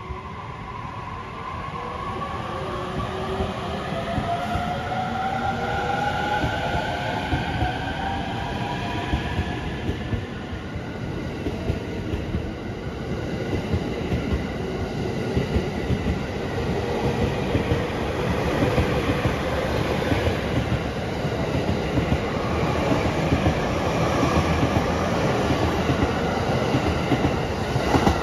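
E231-1000 series electric commuter train pulling away from the platform: the traction motors' inverter whine rises in pitch over the first ten seconds or so, then the rumble of wheels on rail grows louder, with clacks over the rail joints as the cars speed past.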